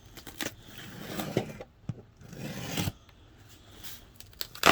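Pocket knife slicing through packing tape on a cardboard box: irregular scraping and rasping of the blade and tape, with a sharp knock near the end.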